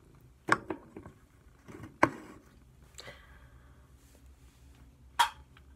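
Aluminium soda cans being handled, set down and picked up. Sharp knocks come about half a second in, at two seconds and near the end, the last the loudest, with a short rustling scrape around three seconds.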